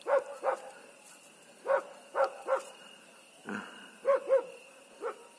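A dog barking in short, even yaps, singly and in pairs, about eight in five seconds.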